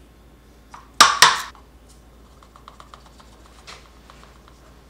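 Two sharp clicks of a small hard plastic cup being knocked and set down about a second in, then faint light ticking as ground coffee is tipped from a paper cup into it.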